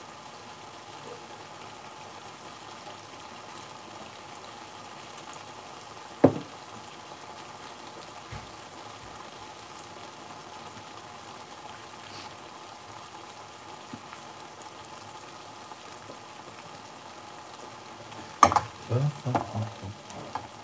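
Thick curry sauce bubbling and sizzling steadily in a metal frying pan on a gas hob as it cooks down. A single sharp knock comes about six seconds in, and a few clattering knocks near the end as the pan is shifted on the hob.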